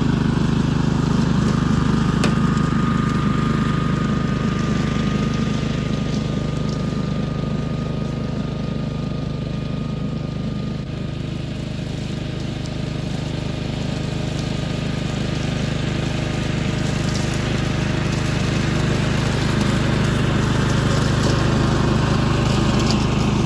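Billy Goat BC2600HHF hydraulic walk-behind brush hog running steadily as it cuts through overgrown grass and brush. It gets quieter as the machine moves away midway and louder again as it comes back near the end.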